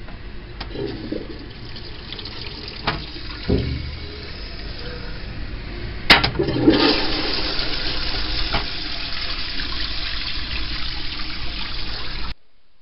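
Wall-hung toilet with a concealed cistern flushed from its wall flush plate: a few light knocks, then about six seconds in a sharp click and a loud rush of water that cuts off abruptly near the end.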